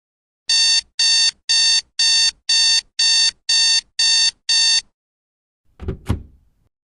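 Electronic alarm beeping: nine short, identical beeps, about two a second. About a second after the beeps stop come two quick knocks.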